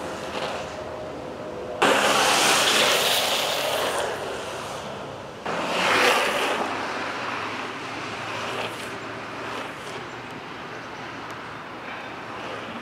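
Urethane longboard wheels sliding on asphalt: a loud rough hiss that starts suddenly about two seconds in and fades over a couple of seconds, then a second slide about five and a half seconds in, with a fainter steady rolling hiss between and after.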